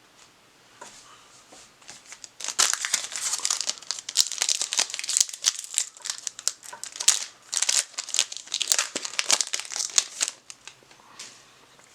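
Plastic trading-card pack wrapper being torn open and crinkled: a dense run of sharp crackling that starts about two seconds in and stops shortly before the end.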